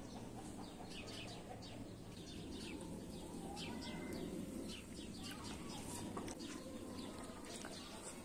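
Small birds chirping: many quick, high chirps that slide downward, scattered throughout, over a faint low hum.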